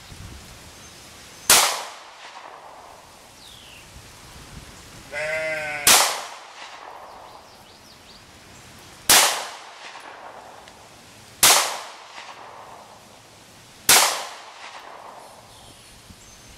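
Five shots from a Walther PPS 9mm compact pistol, fired singly two to four and a half seconds apart, each dying away in a short echo. A sheep bleats briefly just before the second shot.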